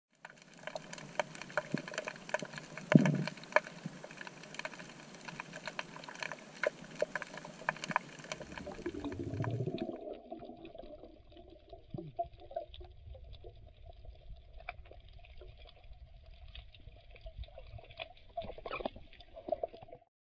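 Underwater sound picked up by a submerged camera: a steady crackle of many small sharp clicks over a water hiss, with a louder thump about three seconds in. From about ten seconds in the sound turns duller, the clicks carrying on.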